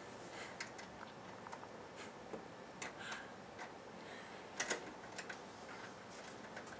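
Faint, scattered small clicks and rustles in a quiet room, with a sharper cluster of clicks a little after the middle.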